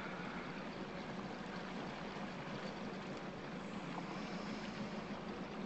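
A boat's motor running steadily at low speed, a low even hum over a hiss of water and wind.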